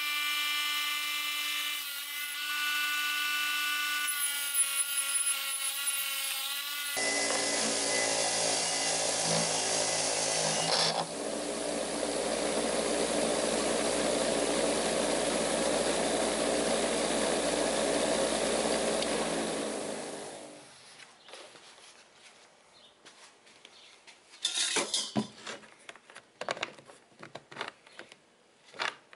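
Bench grinder running with a steady motor whine while its wire wheel brushes a pitted steel axe head. About twenty seconds in, the sound fades away. Scattered light knocks follow near the end.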